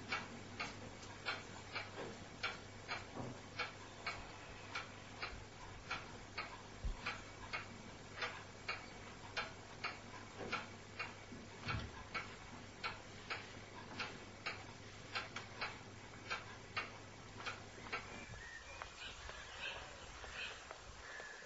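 A clock ticking steadily and evenly, somewhat more than once a second, over a faint low hum; the ticking stops about three seconds before the end.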